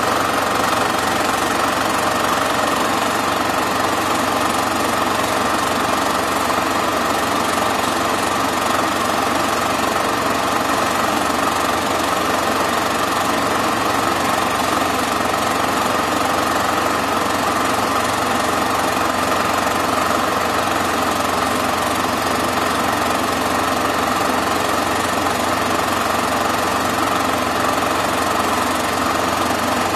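Super 8 film projector running: a steady mechanical whirr and rapid clatter from its motor and film-advance mechanism.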